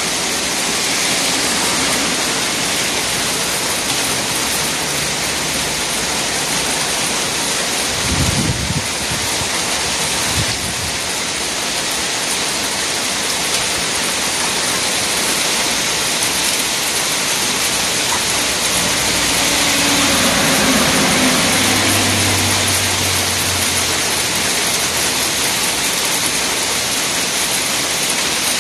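Graupel (small soft hail) pelting down hard in a squall, a dense steady hiss of ice pellets striking an umbrella and the asphalt.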